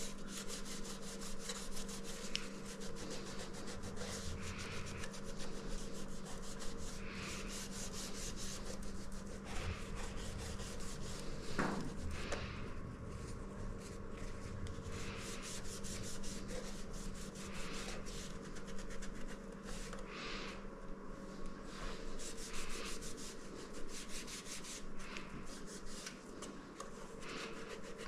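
A cloth rubbing and wiping over the glass panels and metal came of a stained glass ceiling light shade in quick repeated strokes, scrubbing off built-up kitchen grime.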